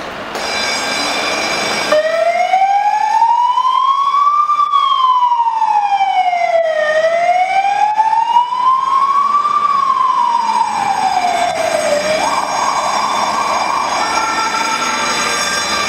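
Fire engine's siren starting about two seconds in on a slow wail, rising and falling with each cycle taking about five seconds, then switching to a fast yelp near the end.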